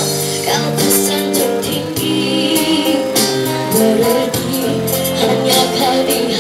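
A young girl's singing voice, amplified through a microphone and PA speaker, over a live band of acoustic and electric guitars and keyboard with percussion hits keeping the beat.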